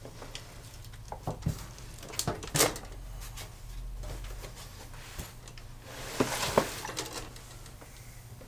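Metal tools being handled and rummaged through in a box, with a few sharp clinks and knocks, loudest about two and a half seconds in and again around six and a half seconds, and a spell of rustling. A steady low hum runs underneath.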